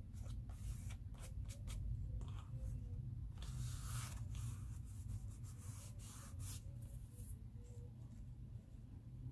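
Hands rubbing and pressing a glued sheet of mulberry paper flat onto a journal page: faint dry paper rustling in a series of short strokes, the longest about four seconds in, dying away near the end, over a steady low hum.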